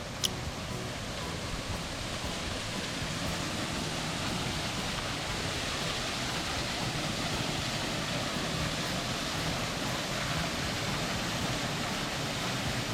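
Steady rush of a waterfall, an even roar of falling water, with one short sharp high-pitched tick just after the start.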